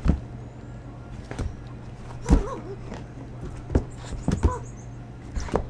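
A capuchin monkey playing with a toy lizard on a wooden ledge: a series of sharp knocks and thumps, the loudest a little over two seconds in. A few short high cries come between them, over a steady low hum.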